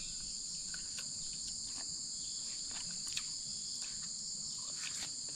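Steady, high-pitched chorus of insects chirring without a break, with a few faint ticks.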